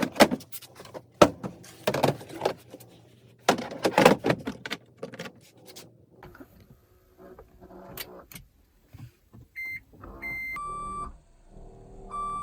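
Knocks and clicks of handling for the first few seconds. Then come the Toyota Prius's electronic alert sounds: two short high beeps, followed by a longer, lower steady tone that sounds twice near the end.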